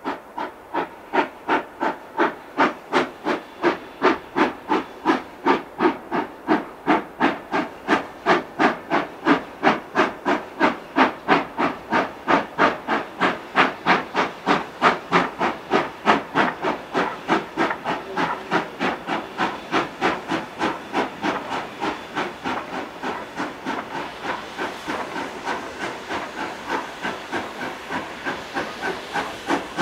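Narrow-gauge D&RGW 2-8-2 Mikado steam locomotive #482, a K-36, working under steam: sharp, even exhaust chuffs at a little over two a second. A steady hiss builds underneath the beats near the end.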